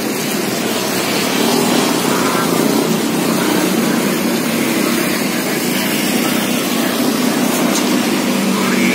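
Steady noise of road traffic, vehicle engines and tyres, growing a little louder near the end.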